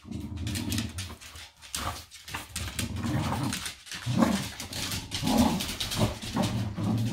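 Two corgis play-growling in low rumbles that rise and fall about once a second while tugging at a blanket-wrapped toy, with scratchy scuffling of paws and fabric on a hardwood floor.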